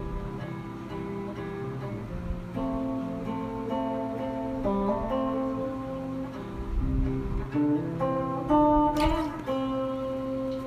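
Acoustic guitar playing an instrumental passage of chords that change every second or so. About nine seconds in, a sharp strum lands on a final chord that is left ringing.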